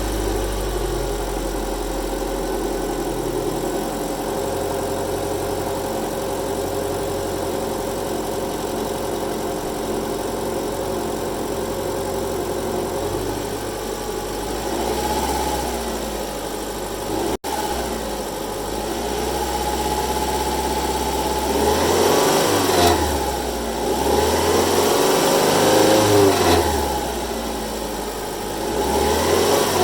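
2012 Subaru Outback 2.5i flat-four engine idling steadily, then revved up and let fall back several times in the second half. The owner hears a rattle like a plate rattling, loudest as the revs fall, and fears engine damage.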